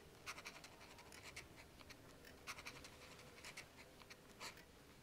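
Faint scratching of a pen writing on paper, in short strokes.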